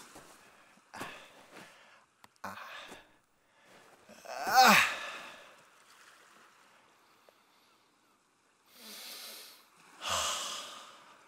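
A man breathing in deeply and sighing aloud: one loud sigh about halfway through slides down in pitch, with audible breaths before and after.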